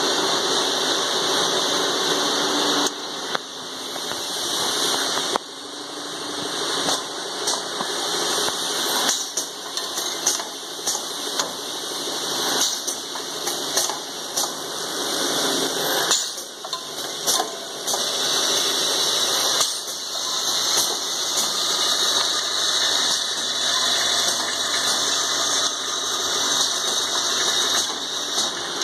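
Automatic drilling machine running with its vibratory bowl feeder: a steady mechanical noise with small metal parts rattling, and frequent sharp clicks and clatters of metal.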